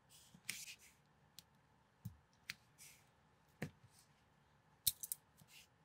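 Small plastic building bricks being handled and pressed together by hand: a scattering of faint sharp clicks and snaps with light rustling, several quick clicks close together near the end.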